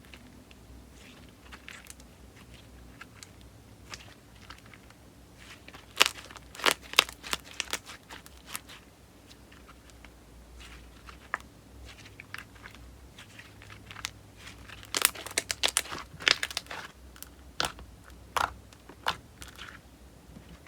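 Slime being squeezed and pressed by hand, giving sharp crackling clicks and pops. There are two dense flurries, about six and fifteen seconds in, and scattered single clicks between them.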